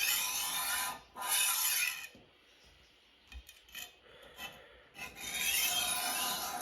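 Rolling knife sharpener's abrasive disc grinding along a knife edge set at a 20-degree angle: two passes of about a second each, back to back, then a longer pass near the end, with a few light clicks in between.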